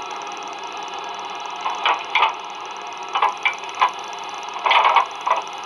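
A LokSound DCC sound decoder playing Tower Models' Hudswell Clarke standing-steam sounds through the model's small speakers: a steady steam hiss with irregular groups of short metallic clanks and rattles, in three bunches.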